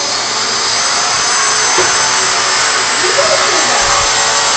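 Vacuum cleaner running steadily: a rushing air noise with a constant high-pitched motor whine.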